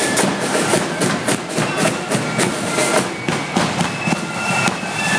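Marching band's snare and bass drums beating a steady march rhythm of sharp hits, about three or four a second, with a few short high notes over them.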